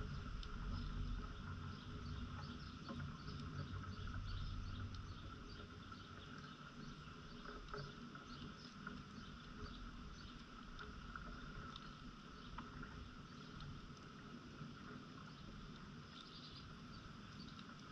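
Quiet outdoor yard ambience: a low wind rumble on the microphone that eases after about five seconds, a steady high insect-like hum, and many faint scattered ticks and clicks.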